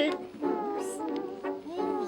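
Background music with held, steady notes.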